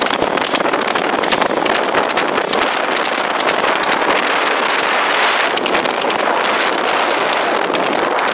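Horse galloping on a paved road, its hooves clattering in quick, uneven strikes on the tarmac, under a steady rush of wind noise from moving at speed.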